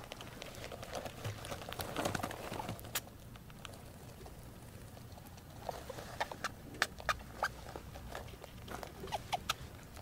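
A group of rats feeding in a cage, crunching food with many small, quick clicks and scrabbles. A few short squeaks come in the second half.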